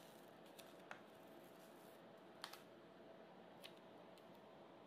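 Near silence with a few faint clicks from a paper sticker sheet being handled and its sticker peeled off the backing. The loudest is a quick pair of clicks about halfway through.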